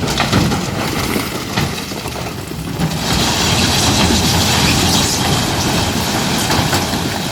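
Hyundai 24-ton dump truck running its engine while tipping a load of stone. From about three seconds in, a loud rushing rattle of rock sliding out of the raised bed joins the engine rumble.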